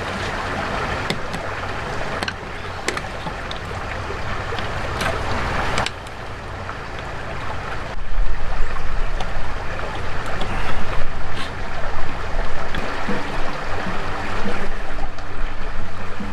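Wind rushing over the microphone, a steady noise that gets louder about eight seconds in. A few sharp clicks of a small metal tool picking at a set screw.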